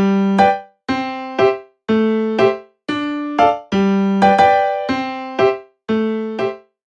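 Background music: a light piano-like keyboard tune, short notes that each die away quickly, about two a second, with brief gaps between pairs.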